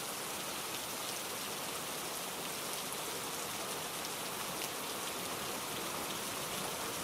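Steady rainfall with a hiss of many drops pattering on a surface, even in level throughout.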